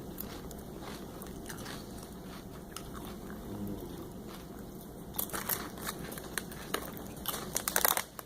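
Potato chips being crunched and chewed, in short crackly bouts from about five seconds in.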